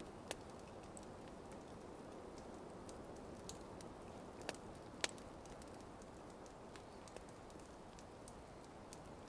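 Wood campfire burning faintly, with scattered sharp crackles and pops, a few louder ones about half a second in and around four and a half to five seconds in.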